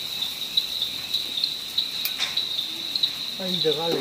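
Crickets chirping in a steady high trill that pulses about three times a second. A voice comes in near the end.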